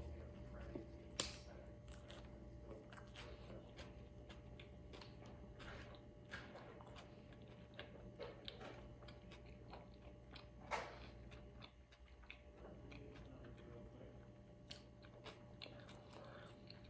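Faint close-up chewing of food, with soft wet mouth clicks throughout and a couple of sharper clicks, one about a second in and one a little past the middle.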